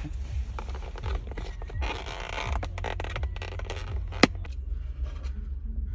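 Rustling, scraping and small clicks of things being handled, with a sharp click about four seconds in, over a steady low rumble.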